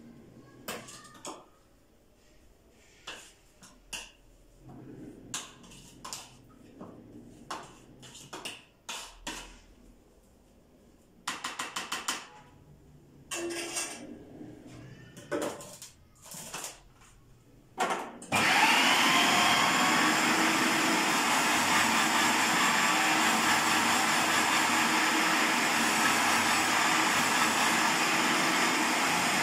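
Clicks and knocks of a food processor's plastic bowl and lid being handled and fitted. About two-thirds of the way in, its motor starts suddenly and runs steadily, chopping green garlic with salt, cumin and pepper into a fish seasoning.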